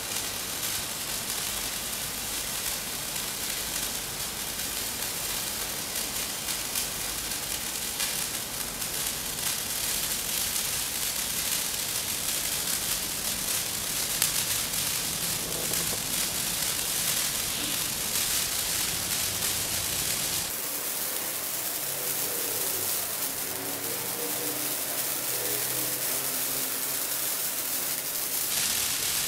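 Hand-held tube fountain firework burning, a steady hissing spray of sparks. About twenty seconds in, the hiss turns thinner and brighter.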